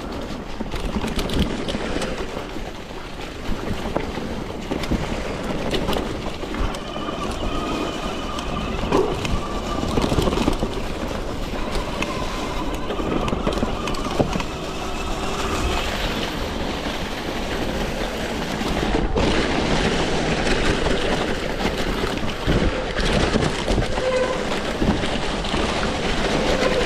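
Electric mountain bike riding a trail: continuous rough rolling and wind noise with rattling, and a faint whine that comes and goes.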